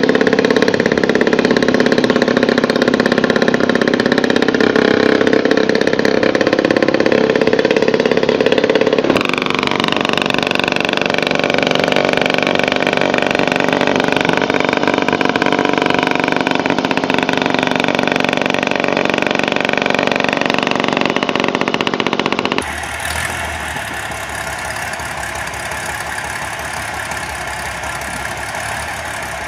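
Engine of a low-slung custom motorcycle running as it is ridden along, its pitch rising and falling. About three-quarters of the way through, the sound cuts to a quieter, steady idle of a homemade motorcycle powered by a car engine.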